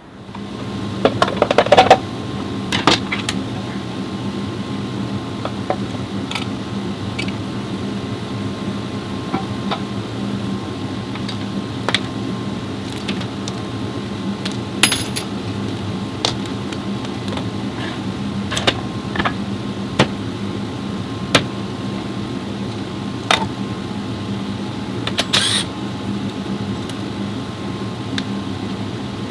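Metal tools and parts clinking and knocking over a steady machine hum, with a cluster of sharp clanks about a second in and scattered single knocks after.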